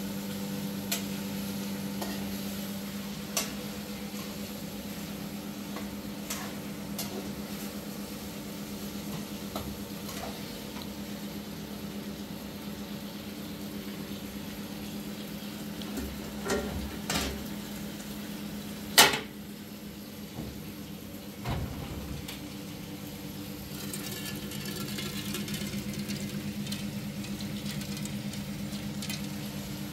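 Kitchen work over a steady low hum: scattered clinks and knocks of pots and utensils, the sharpest about two-thirds of the way in, and near the end a soft rustle of raw rice grains being handled in a bowl.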